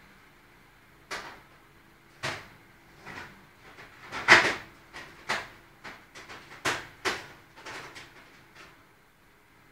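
Ping-pong ball knocking against the wooden end stop of its clear tube, about a dozen irregular knocks, the loudest about four seconds in, over a faint steady hiss.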